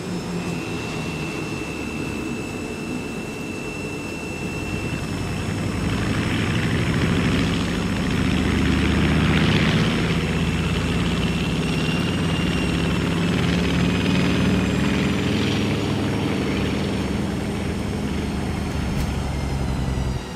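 Jet airliner's engines running, heard from inside the cabin as a steady low hum with a high whine, growing louder about six seconds in.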